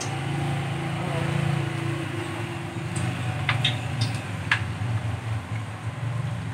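A steady low mechanical hum, engine-like, with a few sharp clicks about halfway through.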